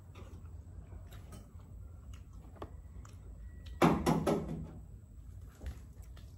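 Small clicks and taps of eating and handling boiled quail eggs at a table, then a sudden loud knock or clatter about four seconds in, repeating two or three times and dying away within a second.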